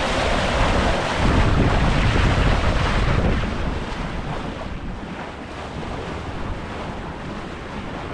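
Wind buffeting the microphone and water rushing along the hull of a sailboat under sail with its engine off, making about 6 knots. The wind gusts are stronger for the first three seconds or so, then ease.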